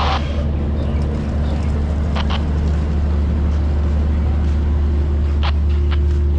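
An engine running steadily at a constant speed, a deep hum with a few brief clicks over it.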